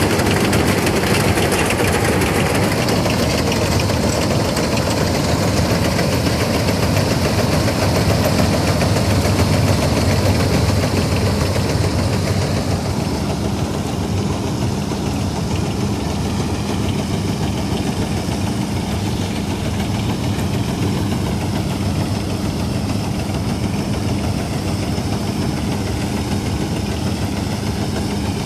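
1965 Ködel & Böhm Köla Combi Special combine harvester running, its engine and machinery making a loud continuous mechanical din. About halfway through it becomes a little quieter and less hissy, settling into a steadier hum.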